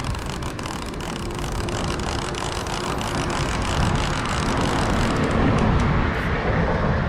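Street traffic noise, with a vehicle passing that grows louder about five to six seconds in.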